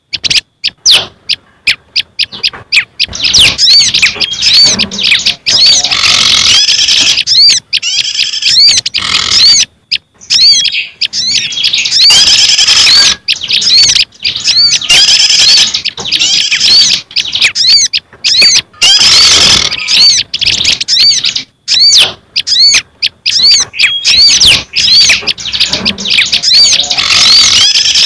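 A loud bird-lure recording mixing the calls of several small garden songbirds, prinias among them: many rapid high chirps and short arched whistled notes, layered and repeating, broken by brief pauses.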